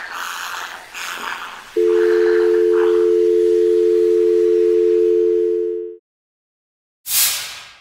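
Telephone dial tone: a steady two-note hum that starts about two seconds in, after a stretch of broad noise, and cuts off abruptly about four seconds later. A short loud whoosh of noise follows near the end.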